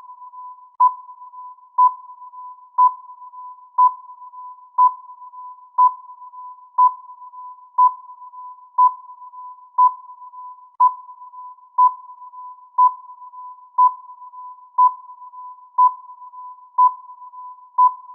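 Countdown timer's electronic sound effect: a high ping once a second, each one sharp and then fading, over a quieter steady tone at the same pitch.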